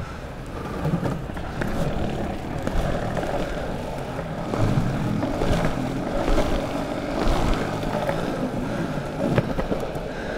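Longboard wheels rolling steadily over pavement, a continuous rumble with a few sharp clicks.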